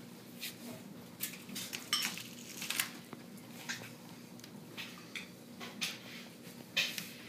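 Baby angora rabbits eating lettuce from a small plate: an irregular run of crisp crunches and leafy rustles, several a second.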